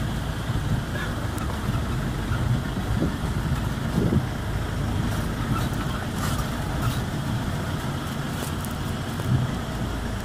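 Safari jeep engine running steadily, heard from inside the vehicle.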